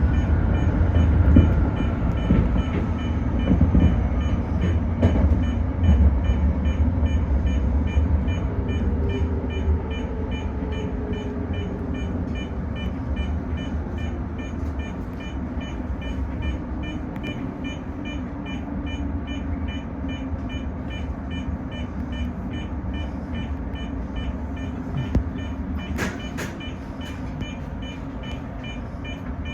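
Toyo Rapid Railway 2000 series electric train running, heard from inside the front car. Its motor whine falls in pitch and the rumble gets quieter as the train slows. A few sharp clicks sound near the end.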